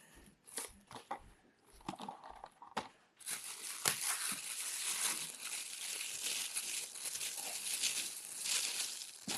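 A package being opened by hand: a few light taps and rustles, then from about three seconds in, continuous crinkling and tearing of packaging.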